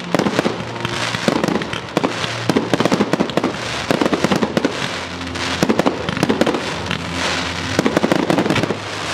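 Aerial firework shells going off in a dense salvo: rapid sharp bangs in clusters every second or so, with the crackle and fizz of crackling stars and comets between them.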